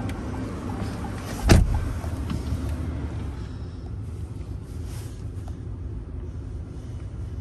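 Low steady rumble of a 2016 Chrysler 200S idling, heard from inside the cabin, with a single loud thump about a second and a half in.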